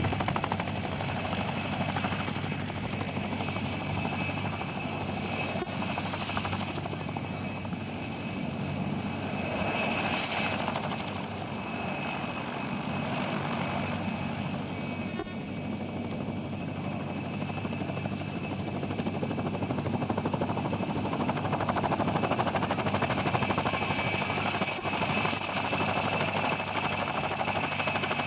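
Mil Mi-2 helicopter hovering and manoeuvring low: the steady high whine of its twin Isotov GTD-350 turboshaft engines over the running noise of the rotors. It swells briefly about ten seconds in and grows louder over the last third.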